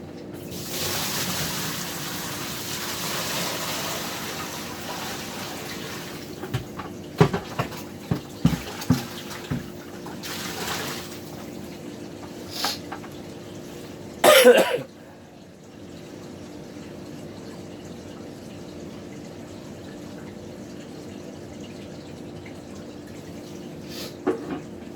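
A bucket of drained water-heater flush water being poured out for several seconds, then a series of sharp knocks as the emptied bucket is handled. A short, loud sound follows about fourteen seconds in, then only a steady low hum.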